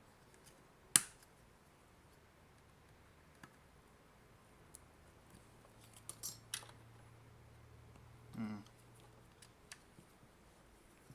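Scattered sharp clicks and a short scrape of a hand tool working on a hard plastic adapter case, the loudest a single sharp click about a second in, with a cluster of clicks around the middle.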